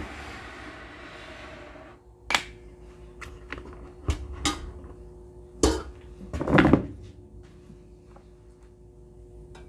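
Home deep fryer being opened and emptied: a soft rustling for about two seconds, then a series of sharp metal knocks and clanks as the wire-mesh fry basket is handled and lifted out of the metal pot, loudest a little past the middle.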